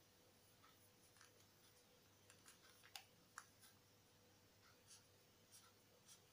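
Very faint clicks and taps of a felt-tip marker being handled and uncapped, two sharper clicks about three seconds in, then the tip starting to write on paper.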